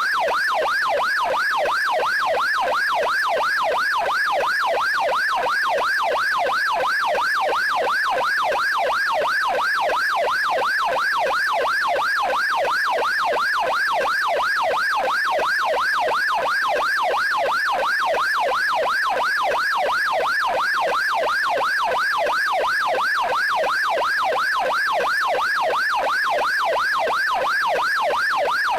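Police car siren on the yelp setting: a rapid, steady up-and-down wail, about three to four sweeps a second, that goes on without a break.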